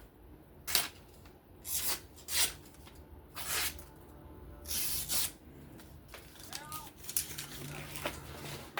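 Folding knife blade slicing paper in about seven short, rasping cuts, an edge test on a blade that is due for sharpening.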